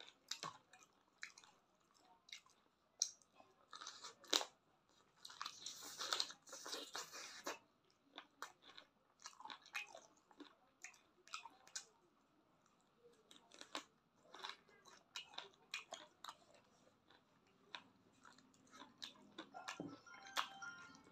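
Close-miked eating of spiced chicken feet: wet chewing, biting and crunching in short irregular clicks and crackles, with a denser, louder stretch about six seconds in.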